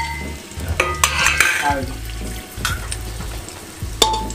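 Chopped onions, green chillies and whole spices sizzling as they fry in hot mustard oil in an aluminium pressure cooker. A steel ladle clinks against the pot a few times, once near the end with a short ring.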